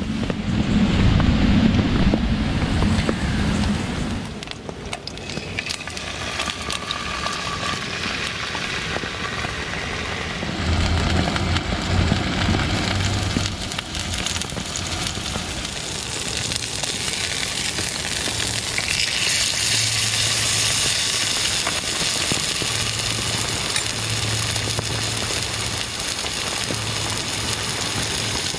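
Steak sizzling in a frying pan on a gas canister stove, the sizzle turning into a strong, steady hiss about two-thirds of the way in. A loud low rumble fills the first few seconds.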